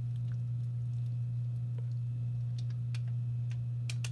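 Steady low electrical hum, one unchanging tone, with a few faint ticks and taps over it.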